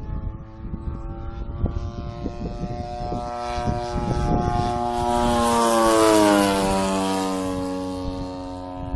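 Engine and propeller of a 35%-scale Sbach radio-controlled aerobatic model plane in a flyby. The drone grows louder to a peak about six seconds in, its pitch drops as the plane passes, and then it fades.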